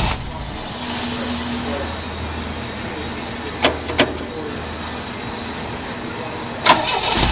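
MGB's 1.8-litre B-series four-cylinder engine with a Weber DCOE sidedraft carburettor idling roughly: cylinders 1 and 4 are not delivering the same power as 2 and 3, so the engine shakes at idle. Two sharp clicks a little past the middle and a louder sharp sound near the end.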